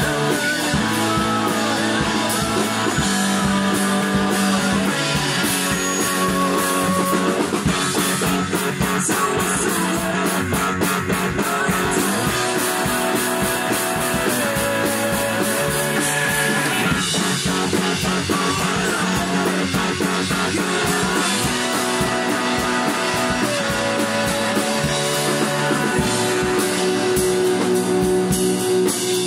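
Rock band playing a song live: a drum kit with snare, toms and crash and ride cymbals (Mapex Saturn kit, Ludwig Supraphonic snare, Zildjian cymbals), electric guitars and bass, with a man singing into a microphone.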